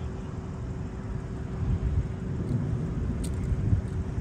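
Low, fluctuating rumble of wind buffeting the microphone, with a faint steady hum underneath.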